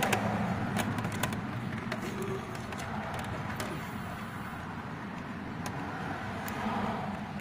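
Scattered light clicks and taps from work on a car door's window parts, over a steady low rumble.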